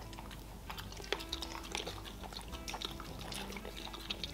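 Quiet chewing of soft food, with many small wet mouth clicks.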